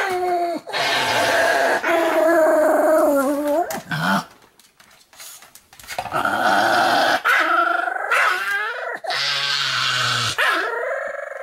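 Pomeranian dog vocalizing: long, wavering whines and howls, each lasting a second or two. There is a pause of about two seconds partway through, then more whining and a low growl near the end.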